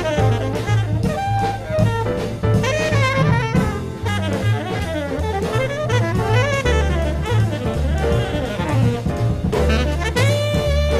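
Jazz background music: a saxophone melody over a stepping bass line and drums.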